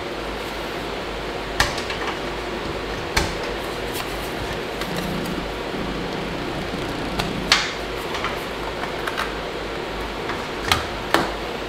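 Steady fan noise with about five sharp plastic clicks and knocks, the loudest about halfway through, as SATA data and power connectors are pulled from a 2.5-inch SSD and the drive is handled on an open-frame mining rig.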